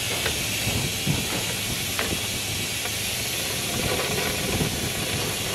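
Steady hiss of an air-powered suction extractor drawing oil out of the engine through a hose, with a few light tool clinks.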